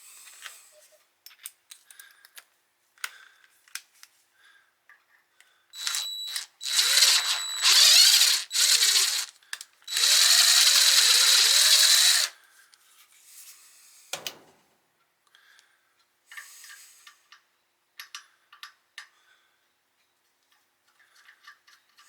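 Cordless drill driver motor running in several short bursts with a high whine, turning a tap to clean out bolt threads. Light clicks of handling before and after.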